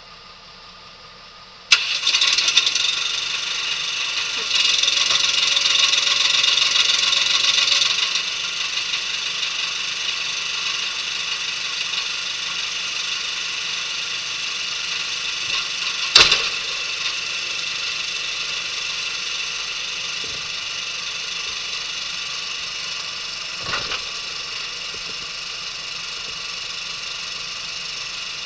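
Small engine on the RGN trailer's gooseneck, the pony motor that drives its hydraulics, starting suddenly about two seconds in. It runs louder for several seconds, then settles into steady running, with a sharp click about halfway through.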